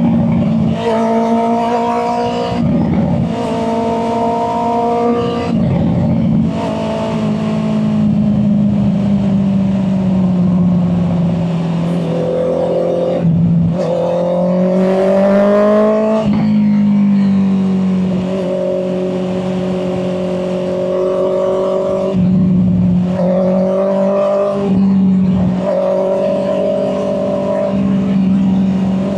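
Honda CB650R's inline-four engine running under way, its pitch climbing under throttle and dropping back several times with short breaks between, as in accelerating and shifting gears.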